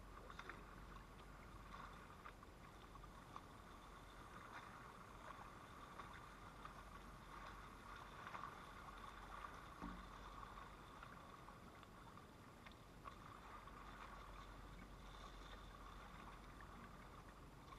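Near silence: a faint, steady rush of running water at the shoreline, with a few soft rustles from a bag being handled.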